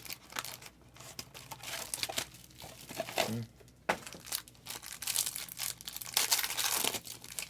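Trading card pack wrappers being torn open and crumpled by hand: irregular crinkling and tearing of plastic-foil packaging.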